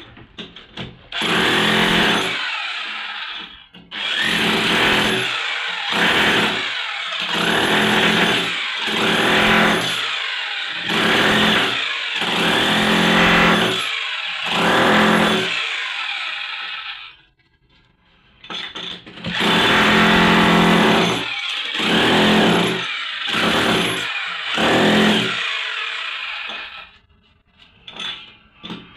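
Loud electric power tool working into a ceramic-tiled bathroom floor in repeated short bursts of a second or two, stopping briefly between them, with longer pauses about two-thirds of the way through and near the end.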